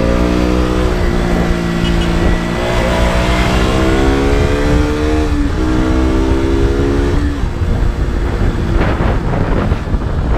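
KTM RC 200's single-cylinder four-stroke engine and exhaust under way. The pitch climbs steadily, drops sharply about halfway through as at an upshift, then holds. Near the end the engine note fades under loud wind rush on the microphone.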